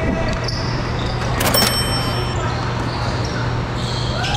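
Indoor pickup basketball game: a basketball bouncing on the court and players moving, with one high squeak about a second and a half in, over a steady low hum and faint voices.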